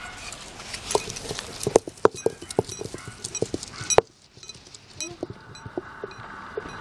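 Heavy stone pestle knocking and grinding against a stone mortar as spice powders and grated coconut are worked into a masala, an irregular run of sharp stone-on-stone knocks.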